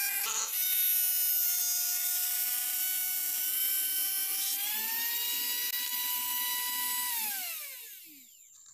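Mini grinder (handheld rotary tool) with a small cutting disc whining at high speed as it cuts a circle in a PVC sheet. Its pitch steps up a little about halfway through. About seven seconds in it is switched off and winds down to a stop.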